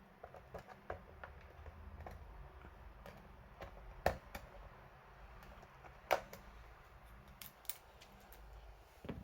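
Scattered light clicks and taps, with two louder knocks about four and six seconds in, over a faint low hum.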